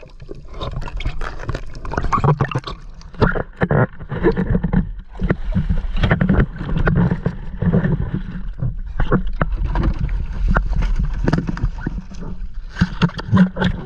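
Water rushing and gurgling against an underwater camera, with a heavy low rumble and many sharp clicks and crackles throughout.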